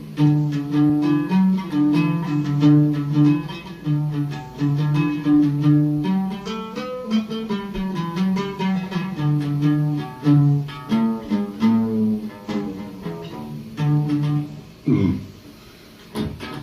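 Oud played solo: a melodic passage of quick plucked notes with repeated tremolo-like strokes, briefly falling quiet near the end.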